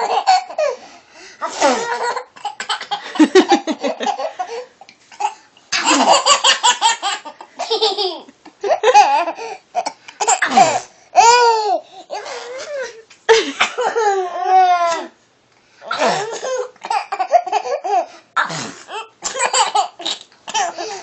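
A baby laughing hard in repeated bursts, some rising into high squeals, as if reacting to fake sneezes.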